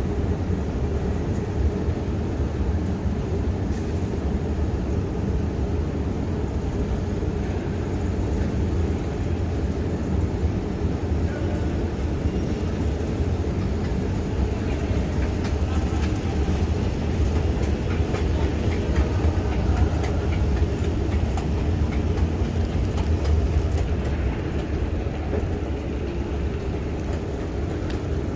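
Long station escalator running, a steady low rumble heard while riding it.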